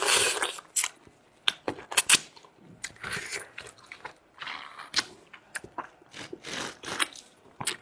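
Close-miked mouth sounds of eating marrow from lamb leg bones: chewing and sucking, with many sharp clicks and smacks and a few short hissing sucks.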